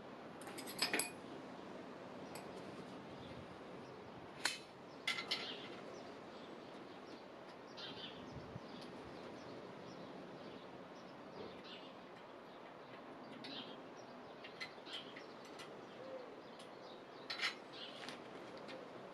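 Scattered light clicks and clinks of small hardware parts being handled, a few sharp ones standing out over a faint steady hiss.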